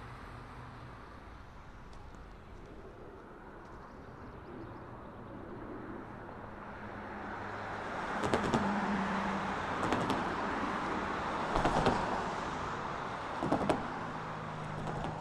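A road vehicle going by: its noise builds over several seconds over a low hum, with four sharp knocks in the second half.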